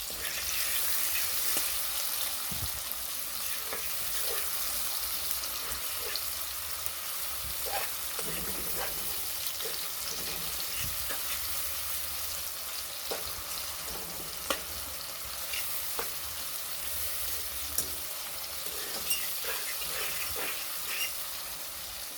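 Chopped seasoning (onion, scallion, tomato, garlic, thyme, scotch bonnet) sizzling steadily in hot oil in a pot, with scattered taps and scrapes of a spoon stirring it.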